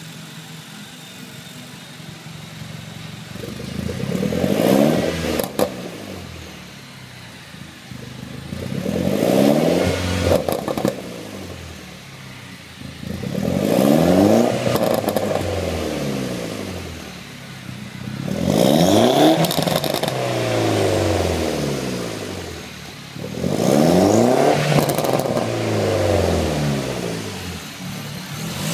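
Mini Cooper S R56's turbocharged 1.6-litre four-cylinder, breathing through a Scorpion turbo-back exhaust, idling and blipped up five times, about every five seconds, each rev rising and falling back to idle. A few sharp crackles come as the revs fall.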